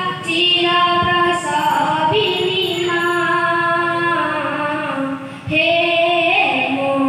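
A child singing solo into a microphone over a PA system, holding long melodic notes that step from pitch to pitch, with a short breath break about five and a half seconds in.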